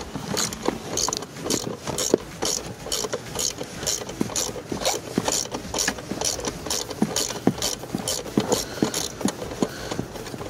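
Ratchet with a 10 mm socket clicking in quick repeated strokes, about three a second, as it loosens a nut holding a yaw rate sensor.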